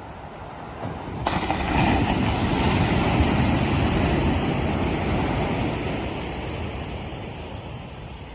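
Ocean wave breaking on the beach about a second in, its surf rushing up loudly and then slowly fading away.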